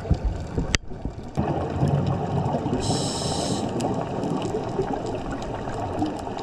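Underwater ambience heard through a dive camera's housing: a steady muffled rush with scattered faint clicks, and a scuba regulator hissing for under a second as the diver inhales, about three seconds in. The rush drops out briefly just under a second in.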